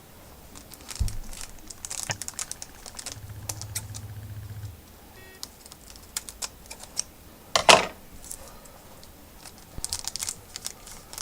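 A pack of hockey trading cards being opened by hand: the wrapper crinkles and tears, and the cards click and rustle as they are handled, with one louder rip about three-quarters of the way through.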